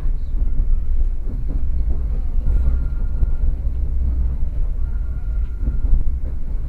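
Moving passenger train heard from inside the carriage: a steady low rumble.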